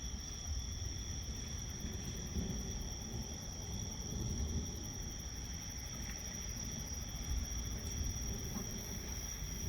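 Insects, crickets by the sound, trilling steadily in two high constant tones over a continuous low rumble.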